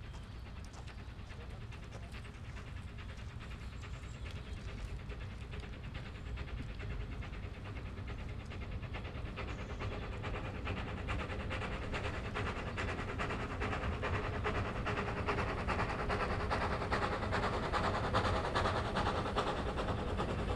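Narrow-gauge saddle-tank steam locomotive working toward the listener with a train of coaches, its rapid chuffing exhaust and running gear getting steadily louder as it nears.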